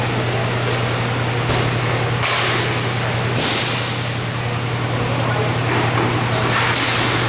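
Indoor roller hockey play: a few sharp clacks and scrapes from sticks, puck and skates, the loudest about two and three and a half seconds in and more near the end, each trailing off into the hall, over a steady low hum.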